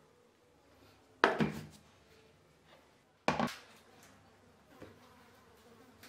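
Two sharp knocks about two seconds apart, each dying away quickly: a steel mixer-grinder jar and its lid being handled and set down. No grinder motor is heard.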